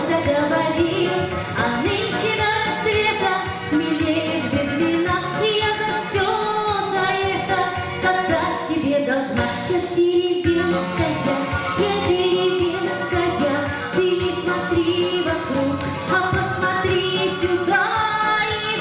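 Music with a singing voice, playing continuously.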